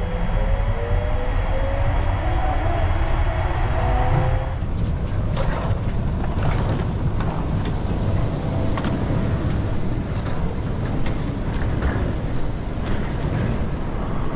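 Airport people-mover train with a rising electric whine for the first four seconds or so, over a steady low rumble. Then the whine stops and scattered footsteps and knocks follow as passengers step off and walk across the hard concourse floor.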